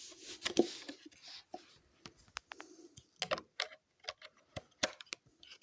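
Hands handling a small portable Bluetooth speaker: scattered clicks and light knocks of plugging something into it and pressing its buttons.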